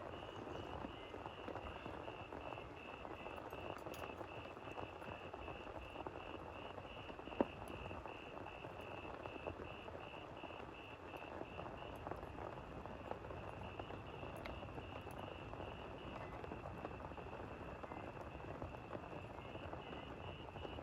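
A frog or insect chorus calls over steady rain: one high note pulses about three times a second without let-up. A single sharp click sounds about seven seconds in.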